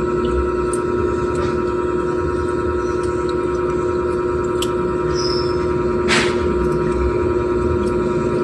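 A steady, loud hum made of several constant tones over a low rumble. A short hissing swish comes about six seconds in, and there are a few faint clicks.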